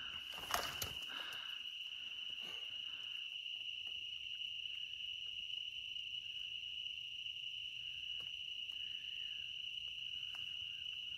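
Night insects, such as crickets, trilling in a steady, unbroken high chorus at one pitch. A short rustle or knock sounds about half a second in.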